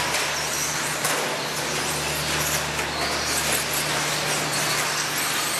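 Radio-controlled short-course truck driving on a packed-dirt track: a steady rush of motor and tyre-on-dirt noise with a faint high whine that rises and falls.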